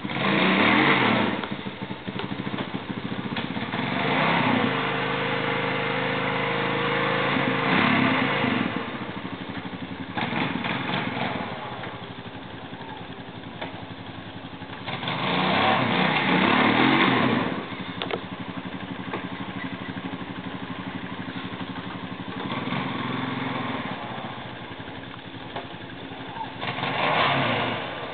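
Honda ATV engine revving in repeated bursts of throttle, several seconds apart, dropping back to idle between them, as it strains to tow a stuck ATV out of deep snow.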